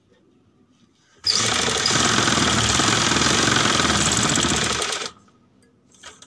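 Domestic sewing machine stitching a seam through folded fabric. It starts about a second in, runs steadily with rapid needle strokes for about four seconds, then stops suddenly.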